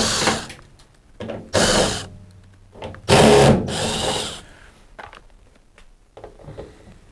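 Cordless drill-driver running in three short bursts as it backs screws out of a tumble dryer's sheet-metal back panel. The third burst is the longest and loudest, and a few light clicks follow.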